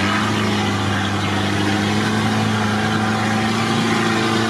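Engine of an off-road vehicle running steadily at a low, even pitch, heard from inside its cab.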